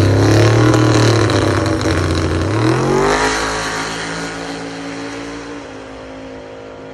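Cadillac CTS-V's V8 at full throttle on a drag-strip pass, its note climbing as it pulls away, then fading into the distance over the last few seconds.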